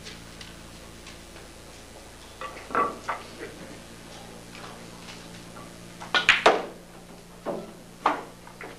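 A few scattered knocks and clacks, with a cluster of three sharp ones about six seconds in, over a steady low electrical hum.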